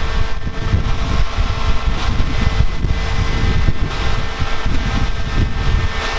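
Concrete mixer truck running steadily, an engine hum with fixed tones, with wind buffeting the microphone.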